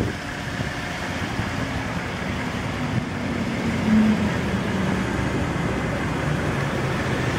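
Steady motor-vehicle noise: a low hum under an even hiss, swelling a little about four seconds in.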